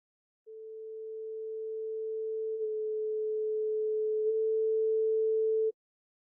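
SHR Tones plugin's tone generator sounding a pure sine tone a little below 500 Hz. It fades in, grows steadily louder, shifts slightly in pitch twice midway, and cuts off suddenly.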